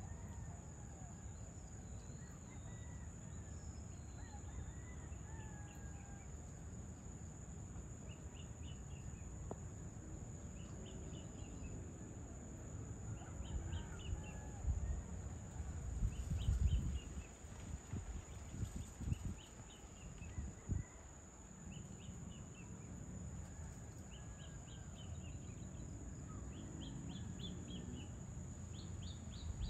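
Evening outdoor ambience: a bird repeats a short, high chirping phrase every couple of seconds, with softer bird calls in the first few seconds. Under it runs a low rumble that grows louder for a few seconds around the middle, and a steady high-pitched whine.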